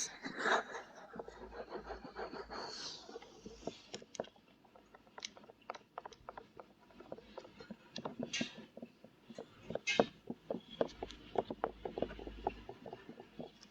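Close-miked ear-cleaning ASMR scratching: soft rustling at first, then irregular light scratches and clicks close to the microphone, densest in the later part.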